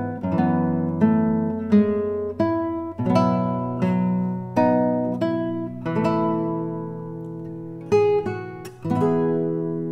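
Nylon-string classical guitar with a capo, played fingerstyle: a slow passage of plucked notes and arpeggiated chords, about one or two a second, ending on a chord that is left to ring and fade.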